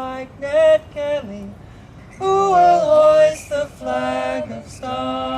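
Voices singing a folk song unaccompanied, in harmony, in short phrases. About five seconds in they settle on a long held chord.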